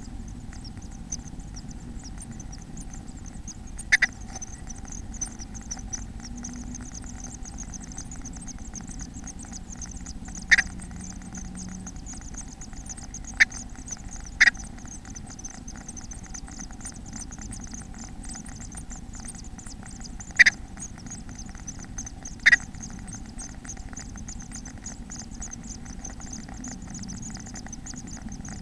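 Inside a bird nest box: six short, sharp taps over a steady hum and high hiss from the box's microphone.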